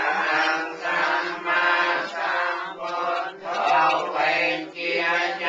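Buddhist chanting by several voices together, on a steady held pitch, in phrases that swell about once a second.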